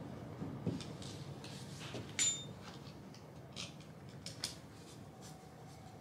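Faint clicks and taps of small screws and metal chassis parts being handled while screws are started by hand. One sharper metallic click, about two seconds in, rings briefly.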